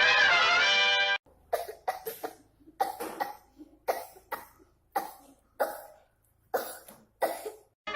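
A young child coughing over and over, a string of short coughs in twos and threes, acting out a kind of cough. It opens with a loud held musical sound effect lasting about a second.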